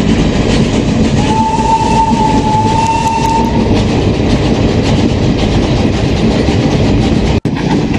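Fairy Queen steam train running, heard from aboard a coach: a steady rumble and rattle of the wheels, with one long whistle starting about a second in and lasting about two seconds. The sound cuts out for an instant near the end.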